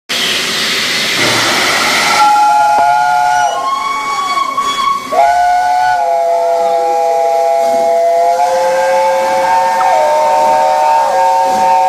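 Steam whistle of the Peppercorn A1 steam locomotive Tornado: a rush of steam hiss, then two short whistle blasts and a long one held for about six seconds, sounding several notes together as a chord.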